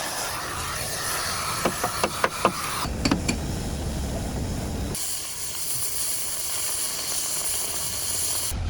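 Steady hiss with a quick run of about five sharp knocks about two seconds in, and a few more just after. The background noise changes abruptly twice partway through.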